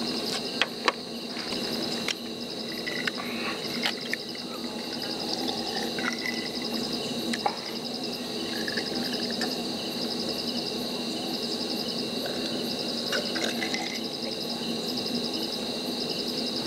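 Insects chirring steadily in a high, continuous trill with a fast pulsing over it, and a few sharp clicks scattered through.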